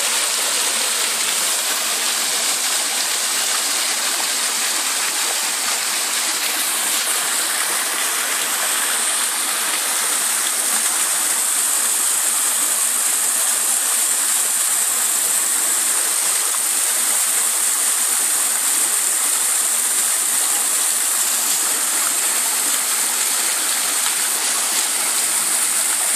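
Decorative fountain running: thin vertical jets and dome-shaped water-bell nozzles splashing into a tiled pool, a steady hiss of falling water.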